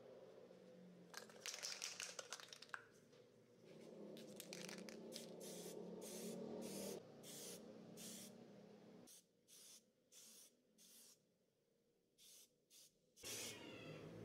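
Faint hiss of an aerosol spray-paint can being sprayed in short bursts, with a longer spray in the middle and a quick run of short puffs near the end.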